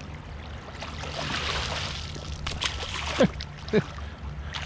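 Stream water running steadily, with a stretch of splashing about a second in. Two short falling squeaks come a little after the splashing.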